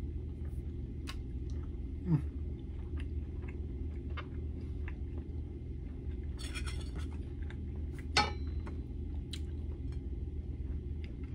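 A person eating by hand: chewing, with scattered small clicks and a short rustle of fingers on a plate and paper, over a steady low room hum. There is a brief mouth sound about two seconds in and a sharper click about eight seconds in.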